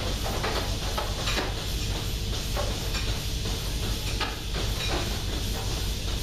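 Milking-parlour machinery running while goats are milked: a steady hum and hiss of the milking vacuum, with scattered short clicks.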